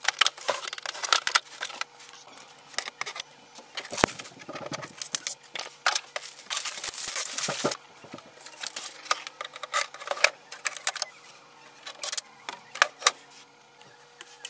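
Plastic wrapping crinkling and rustling as it is pulled off a new printer, with clicks and knocks from handling the printer. About six seconds in, a longer stretch of crackling, like the wrap being peeled or torn away.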